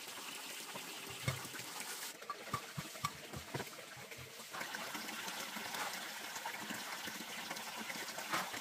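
Handfuls of a damp, crumbly mixture being dropped and packed into a large glass jar: scattered soft thuds and light taps against the glass, over a steady rushing background.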